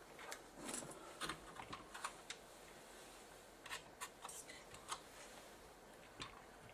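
Faint, scattered light clicks and taps of small hand tools and parts being handled at the workbench, some in quick clusters, during desoldering of capacitors from a circuit board.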